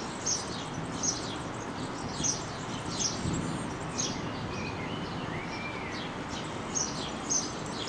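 Small birds chirping: short, high, down-slurred chirps repeating every half second to a second, with a couple of softer whistled notes near the middle, over steady outdoor background noise.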